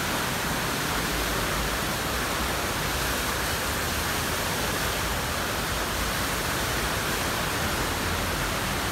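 Turbulent whitewater of a standing river wave rushing in a steady, unbroken roar.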